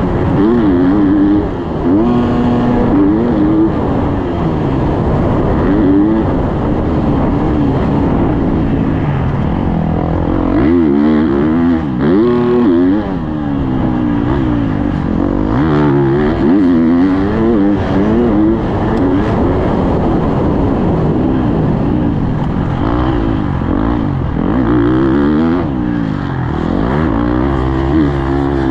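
Husqvarna motocross bike engine revving hard and backing off again and again, its pitch climbing and dropping through the gears, heard from the rider's helmet camera.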